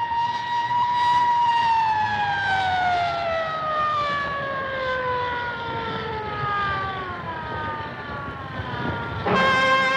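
A ship's siren sounds one long tone. Its pitch rises slightly, then falls slowly over several seconds as it winds down and fades. Near the end, brass music starts abruptly.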